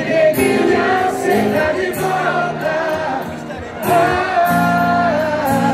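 Live sertanejo band music: male voices singing a held, bending melody over acoustic guitar and bass, with many voices singing along, heard from within the audience.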